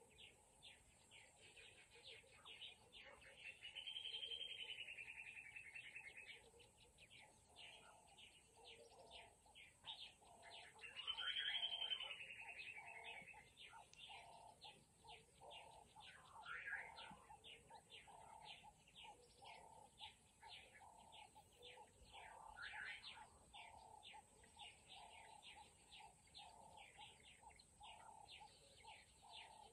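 Faint chorus of several wild birds: quick repeated chirps throughout, with two longer warbling songs about four and ten seconds in, the second the loudest. From about eight seconds a lower note repeats roughly once a second.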